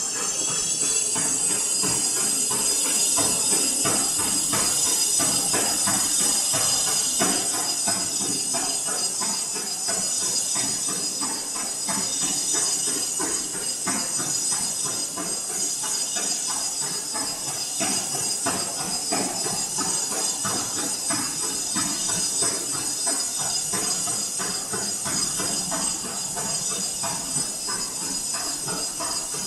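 Gym treadmill running under a runner: a steady high motor whine that rises in pitch over the first couple of seconds as the belt speeds up, then holds. Over it, running shoes strike the belt in a fast, even rhythm of thuds.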